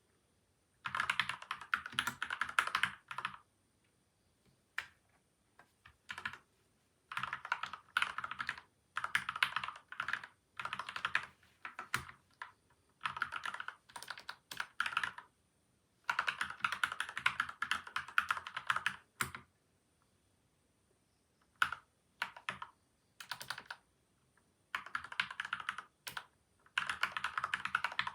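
Typing on a PCL87 mechanical keyboard fitted with lubed Gateron milky white and Outemu yellow switches and dampened with tape and foam: fast runs of keystrokes lasting one to three seconds, broken by short pauses and a few single key presses.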